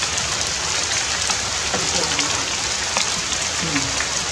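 Steady rain falling through forest foliage and onto a plastic umbrella, with scattered sharp drop ticks. Two faint, short, falling vocal sounds come near the middle and toward the end.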